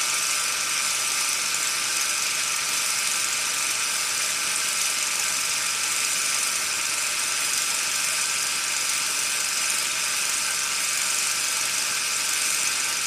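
A steady, even whirring hiss with a few faint held tones, starting and stopping abruptly: an added sound effect under a logo card rather than a recorded scene.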